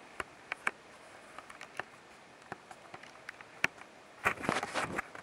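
Handling noise of a handheld video camera being moved about: scattered sharp clicks and knocks, then a short burst of rustling and clicking about four seconds in.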